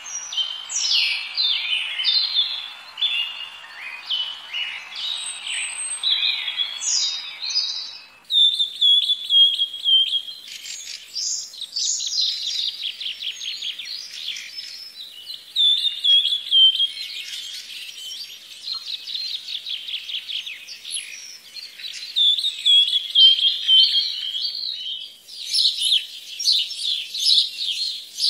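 Small birds chirping and twittering in a busy run of quick, high notes. About eight seconds in, a background hiss drops away, and near the end higher, sharper calls join in.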